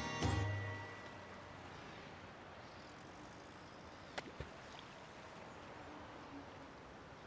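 Faint, steady outdoor background hiss, with a sharp click about four seconds in and a fainter one just after.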